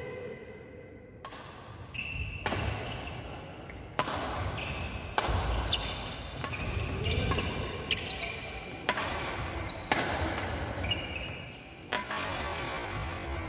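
Badminton rackets hitting a shuttlecock about ten times, roughly once a second, during a doubles rally, each hit a sharp crack that rings on in a large hall. Short high squeaks from shoes on the wooden court come between the hits.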